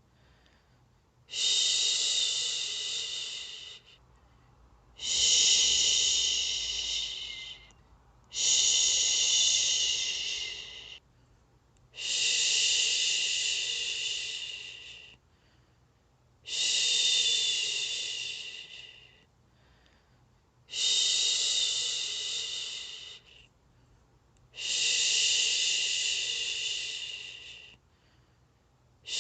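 A person shushing, 'shhh', in long even strokes: seven hisses of about three seconds each, a second's pause between, the steady rhythm used to lull a baby to sleep.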